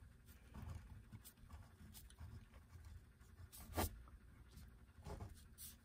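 Faint scratching of a ballpoint pen tracing lines over heavyweight Polyflex print paper laid on graphite transfer paper, with one louder click about two-thirds of the way through.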